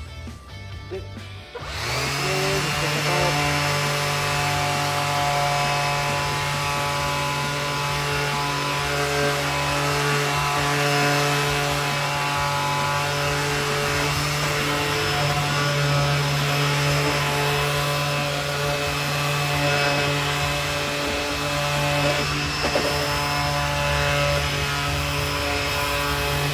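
Makita 18V cordless random orbital sander switched on about two seconds in, then running steadily with an even hum as its pad sands a pine board.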